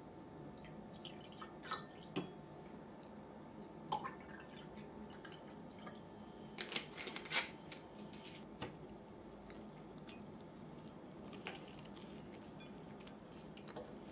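A drink poured into a glass, dripping and trickling, then a few scattered light clicks and taps, the most in a cluster about seven seconds in, over a steady low room hum.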